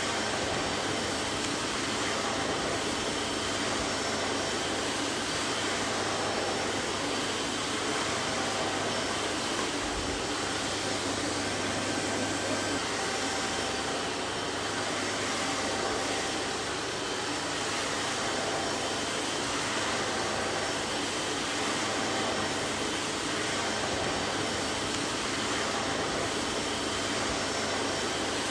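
Vacuum cleaner running steadily: an even rush of air with a faint, constant whine from the motor.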